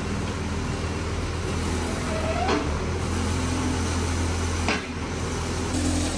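Diesel engine of a self-loading concrete mixer running steadily, with two short knocks, one about two and a half seconds in and another near five seconds.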